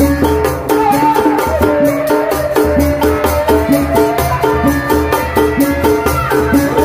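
Tanji band music: drums keep a fast, steady beat under rattling high percussion, with a wavering melody line above.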